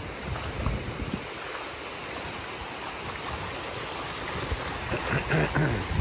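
Small sea waves washing on a shallow sandy beach, with wind rumbling on the microphone.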